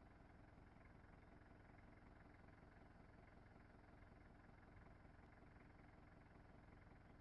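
Near silence: a faint, steady low hum with no distinct sounds.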